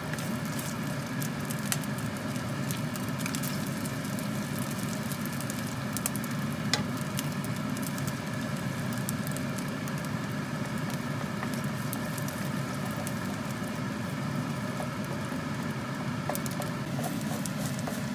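Rice frying in hot oil in a nonstick skillet: a steady sizzle, with a wooden spatula scraping and tapping the pan as the rice is stirred, and raw eggs sizzling in the pan beside it. One sharper knock about seven seconds in.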